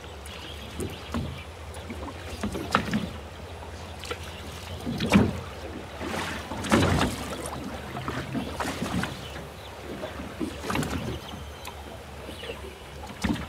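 Sounds on board a small fishing boat on the water: a steady low drone runs under irregular knocks and short bumps, the loudest about five and seven seconds in.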